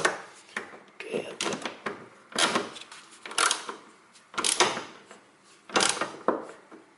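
Ratchet wrench clicking in short bursts, about one a second, as the bolts of a rear anti-roll bar link are tightened.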